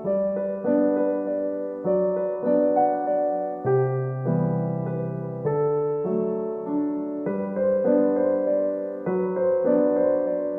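Soft background piano music: sustained chords and a slow melody played on a piano or electric piano.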